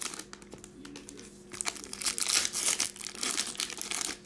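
Foil trading-card pack crinkling as it is handled and torn open by hand. The crackle thins out for a moment early on, then comes back thicker.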